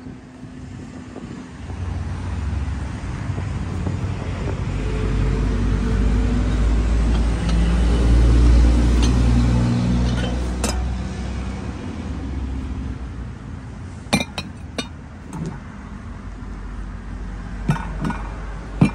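A car's engine and road rumble swell over several seconds, the engine note stepping in pitch, then fade away. A few sharp clicks and clinks follow near the end.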